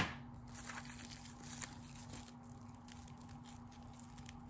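Faint rustling and small handling clicks, with a steady low hum underneath.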